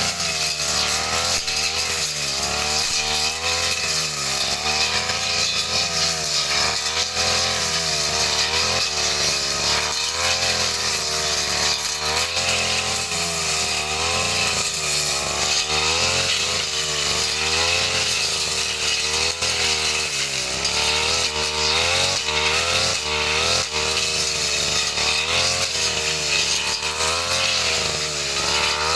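Two-stroke brush cutter engine running hard while cutting grass, its pitch rising and falling over and over as the load on the blade changes.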